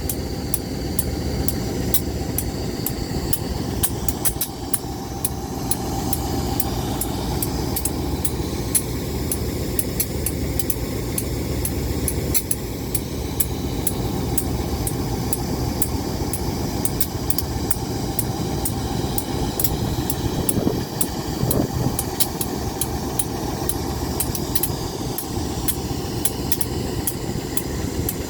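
Diesel locomotive engine running steadily with a deep low rumble, peppered with frequent sharp ticks.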